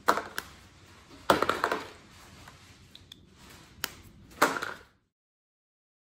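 Sharp plastic clicks and knocks as caps are snapped onto filled lip balm tubes and the tubes are set into a plastic bowl, about seven in all, the loudest a little over a second in and about four and a half seconds in. The sound cuts out completely about five seconds in.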